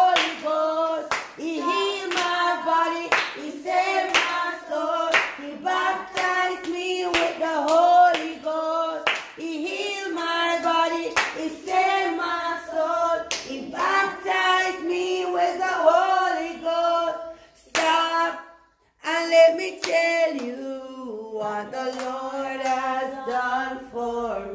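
Children singing a gospel chorus together and clapping their hands in steady time. The singing and clapping drop out briefly about three-quarters of the way through.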